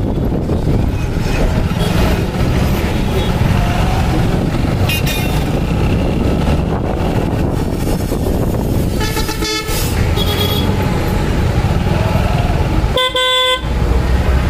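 Busy road traffic: a steady low rumble of vehicles, with horns honking. There are two clear honks, about nine and thirteen seconds in, and fainter short beeps between them.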